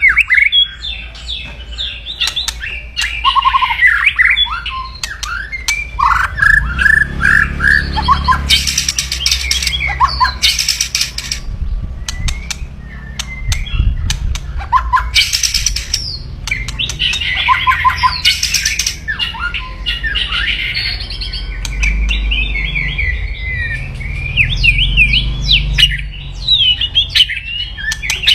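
White-rumped shama (Medan murai batu) calling aggressively. Fast whistled and chattering phrases are broken several times by short, harsh, rasping 'kretekan' crackles, an aggressive call that riles rival birds.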